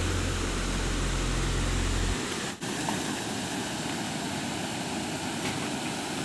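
Steady rush of water spilling over a low concrete check dam, with wind on the microphone. For the first two seconds a low steady drone sounds over it and cuts off abruptly.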